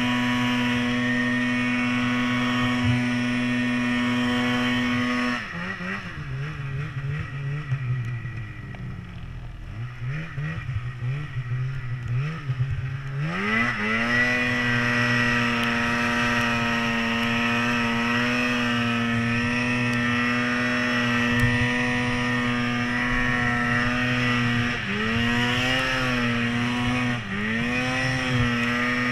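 Polaris PRO RMK 800 snowmobile's two-stroke twin engine running at high revs. About five seconds in the revs drop to a low, wavering speed for about eight seconds, then climb back and hold high, with two quick dips and recoveries near the end.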